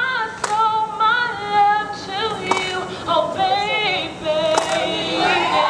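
A woman singing live into a microphone, a soulful line of runs and bending notes with vibrato.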